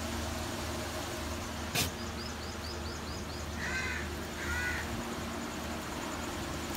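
A crow cawing twice in quick succession, about four seconds in, after a quick run of high, thin bird chirps. A single sharp click comes just before the chirps.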